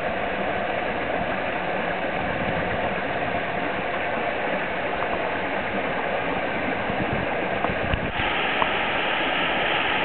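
Mountain stream rushing over small cascades and splashing into rock pools, a steady sound of running water that grows a little louder about eight seconds in.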